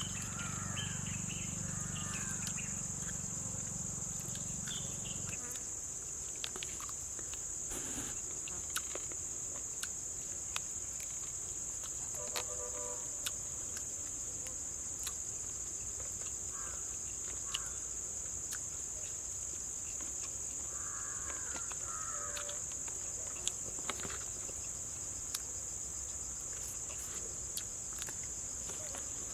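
Steady, high-pitched chorus of insects such as crickets, running without a break. A low hum underneath stops about five seconds in, and a few short calls and scattered sharp clicks come through the chorus.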